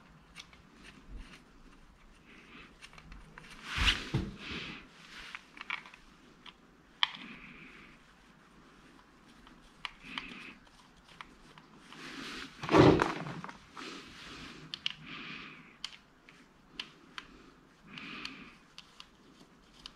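Small clicks and rattles of a metal timing chain and plastic chain guides being handled and fitted onto an engine by hand. There are two louder clatters, about four seconds in and again near the middle, the second the loudest.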